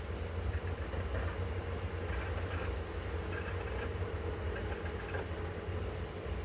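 Tailoring shears cutting through cotton shirt fabric, a few faint snips near the middle, over a steady low rumble and hum.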